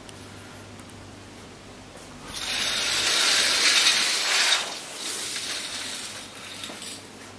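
Fabric curtain drawn open along its rail: a rasping slide of about two seconds, about two seconds in, then a softer rustle that dies away.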